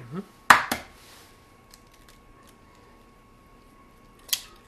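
Eggs being knocked against the rim of a small glass bowl to crack them open: two sharp taps about half a second in, and another near the end.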